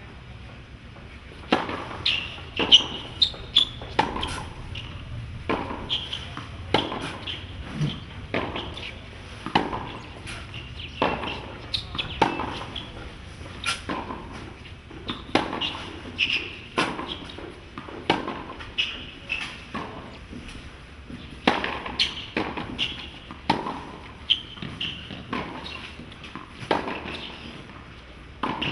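Tennis ball being struck by rackets and bouncing on a hard court during rallies: sharp pops about once a second, with a few short gaps.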